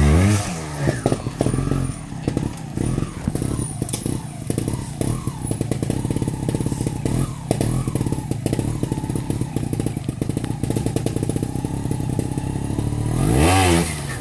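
Trials motorcycle engine running with short, repeated throttle blips as the rider works through the section, then a hard rising rev near the end as the bike climbs a rock face.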